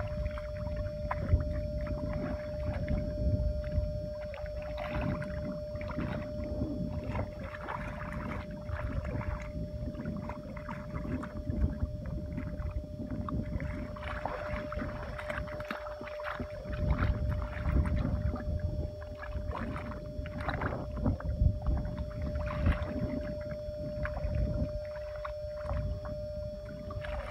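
Bare feet and hands sloshing and splashing through shallow muddy water, an irregular run of wet squelches and splashes from wading and groping in the mud.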